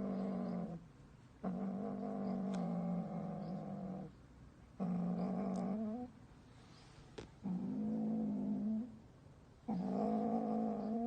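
Domestic cat yowling: a series of long, low, drawn-out calls of a second or two each at a fairly steady pitch, with short pauses between them. Some calls end with a brief upward bend.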